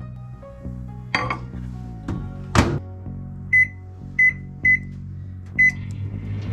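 Panasonic microwave oven: a couple of sharp knocks, the louder about two and a half seconds in, then the keypad beeps four times as the time buttons are pressed, and the oven starts up with a low hum near the end.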